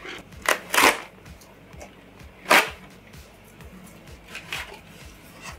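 Cardboard mailer being torn open by hand: two quick rips about half a second in, a louder rip about two and a half seconds in, and a softer rustle near the end, over quiet background music.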